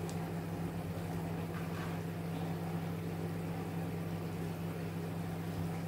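Steady electric hum of an air fryer running, with a faint sizzle from the sauce frying in the pot.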